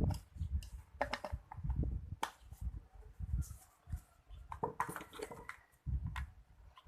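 Irregular knocks, clicks and rustles of parts and packaging being handled, over low rumbling handling noise.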